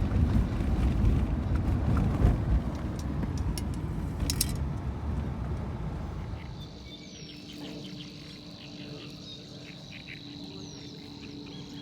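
Loud low rumbling noise for about the first six seconds, then quieter outdoor ambience with a steady high-pitched insect trill and a few bird chirps.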